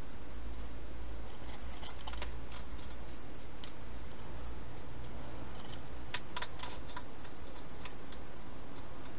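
A hedgehog eating at its bowls inside a plastic feeding box: two spells of small sharp clicks and crunches, about two seconds in and again around six seconds, over a steady hiss and low hum.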